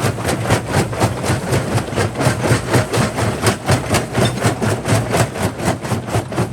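Quarry jaw crusher running: a steady low hum under rapid, evenly spaced knocks, about three to four a second, as the jaw works on rock.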